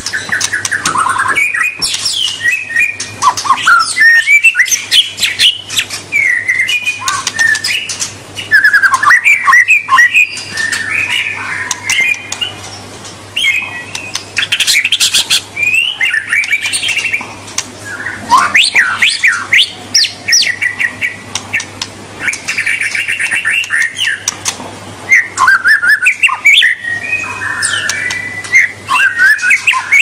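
White-rumped shama (murai batu) singing a long, unbroken run of varied whistled phrases with quick rising and falling notes, broken by a few rough chattering bursts.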